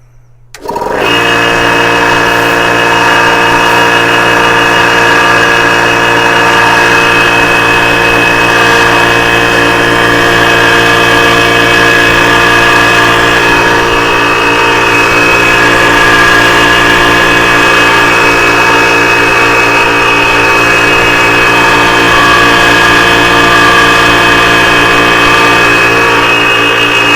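Tuxing high-pressure PCP air compressor switching on about a second in and then running steadily and loudly, bleed valve open. It is putting out next to no air, which the owner calls a fail.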